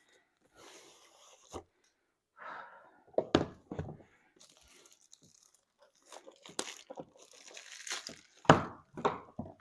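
Diamond painting kit packaging being opened by hand: crinkling and tearing in several separate bursts, with the loudest handling noises about a third of the way in and again near the end.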